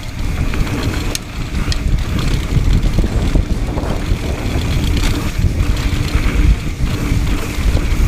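Wind buffeting the action camera's microphone and knobby mountain bike tyres rumbling over a rocky dirt trail at speed, with occasional sharp rattles and clicks from the bike over bumps.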